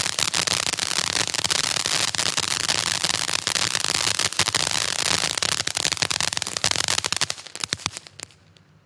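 Black Cat 'Tropical Thunder' firework cake going off, its bursts of crackling stars making a dense, continuous crackle of pops. The crackle thins to a few last cracks about seven and a half seconds in, then dies away.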